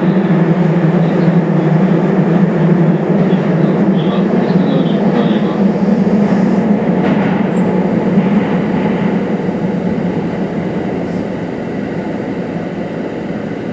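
Running noise of a Kintetsu Series 21 electric train heard from inside the car: a steady rumble with a strong low hum and a few faint high squeaks, growing gradually quieter over the last few seconds as the train approaches a station stop.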